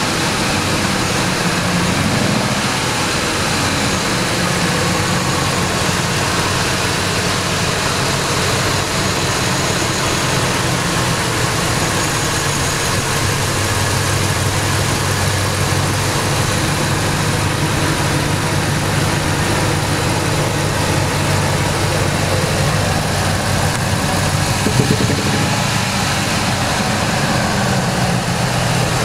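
Ford 5.4-litre Triton V8 running steadily at around idle, its speed dipping slightly about two seconds in and rising a little near the end, with one short sharp sound about three-quarters of the way through. This is an engine long run on neglected oil, with metal shavings found in the pan, which the owner says still knocks when revved.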